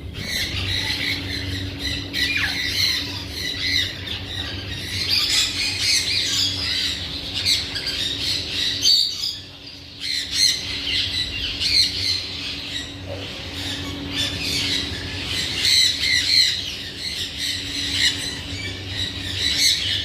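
Alexandrine parakeet squawking and chattering almost without a break, with a short lull about nine seconds in. A steady low hum runs underneath.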